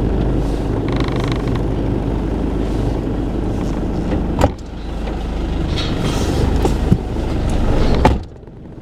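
A machine engine running with a steady low rumble, with a sharp knock about four and a half seconds in and another about a second later; the rumble cuts off suddenly near the end.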